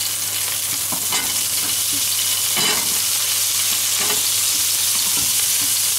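Chopped celery sliding off a wooden cutting board into a frying pan of hot pork fat and sizzling steadily, with a few soft knocks as pieces drop in and the board touches the pan.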